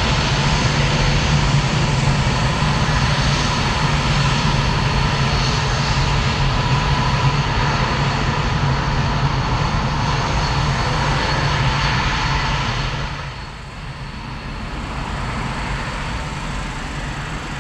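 Dassault Mirage 2000's single jet engine running as the jet taxis: a steady jet rumble with a thin high whine. About thirteen seconds in it drops and dulls, then runs on more quietly.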